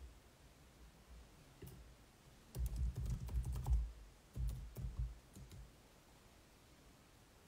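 Two short runs of light tapping and clicking with dull bumps, like typing or tapping on a device close to the microphone: the first about two and a half seconds in, the second about a second later.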